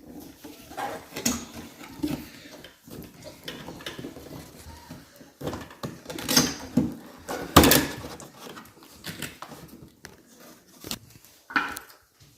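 Irregular knocking and clattering of a Henry cleaning trolley and its parts being handled, with the loudest knock about seven and a half seconds in.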